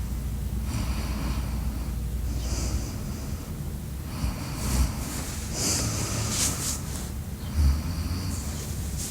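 A sleeping person snoring: a run of noisy breaths about two seconds apart. Two low thuds, about five and eight seconds in, are the loudest moments.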